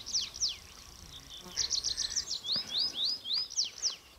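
Songbirds singing. First comes a series of quick falling whistles, then about a second and a half in a rapid run of high chirps, followed by four rising notes.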